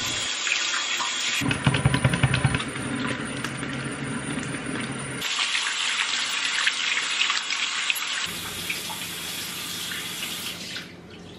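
Kitchen tap running into a stainless steel sink while hands are washed under the stream, the water splashing off them. The water stops abruptly near the end.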